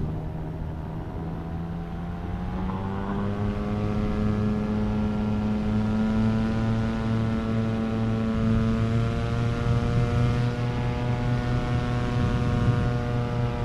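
Minari Stratos 400cc two-stroke twin-cylinder boxer paramotor engine driving its propeller in flight. Its pitch rises over the first few seconds as the revs come up, then holds steady.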